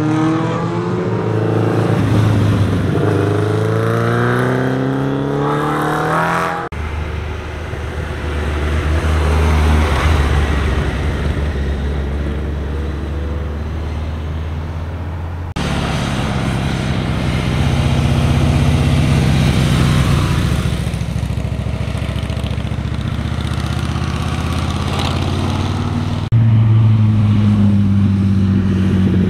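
Motorcycles riding one after another through a tight bend, their engines' pitch gliding down and up as they slow and accelerate. The sound changes abruptly three times as one bike gives way to the next.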